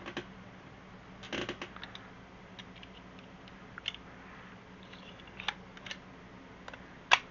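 Scattered small clicks and scrapes of metal staples being pulled out from the previous test, with a sharper, louder click near the end.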